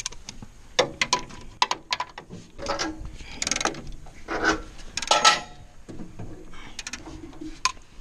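Hand socket ratchet clicking in several short runs of rapid clicks as a bolt on a single-row corn chopper is turned, with single sharp metal clinks of the tools against the steel between them.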